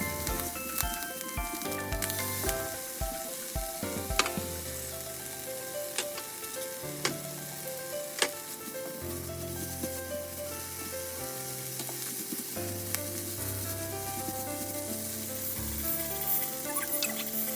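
Ham and vegetables sizzling in a frying pan as they are stir-fried, with a few sharp clicks, over background music.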